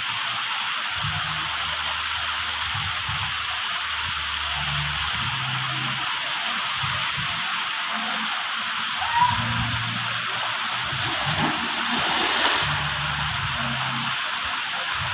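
Steady rush of water running down water-park slides and splashing into the pool, briefly louder about twelve seconds in.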